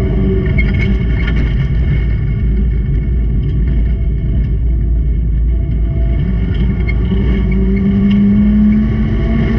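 Racing car engines running hard, with one engine's tone rising and getting louder about three-quarters of the way through as it accelerates.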